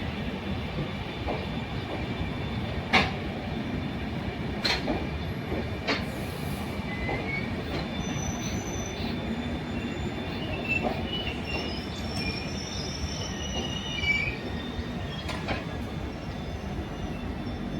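Express train's coaches rolling along the rails: a steady rumble of wheels on track, with a few sharp clanks over the rail joints and short high-pitched wheel squeals in the middle.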